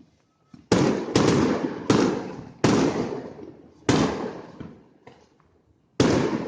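Aerial fireworks shells bursting: six loud bangs in irregular succession, each dying away over about a second.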